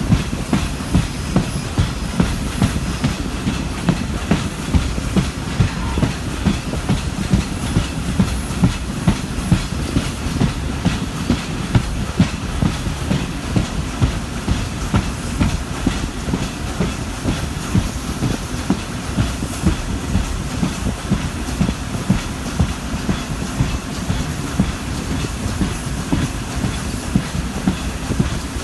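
Riding inside a moving passenger railroad coach: a steady low rumble of the running gear, with a regular clickety-clack of the wheels over rail joints, a little under two clicks a second.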